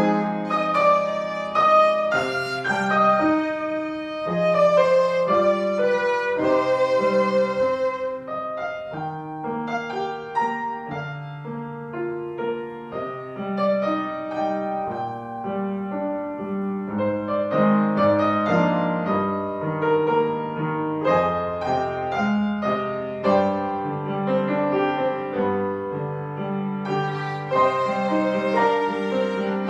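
Violin and upright piano playing a melodic duet. About a third of the way in the violin drops out for several seconds, leaving the piano alone, then rejoins.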